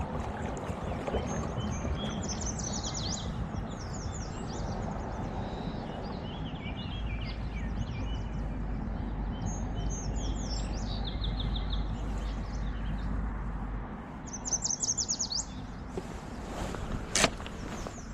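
Songbird singing short, rapid trilled phrases, repeated several times, over steady wind and water noise. A single sharp knock near the end.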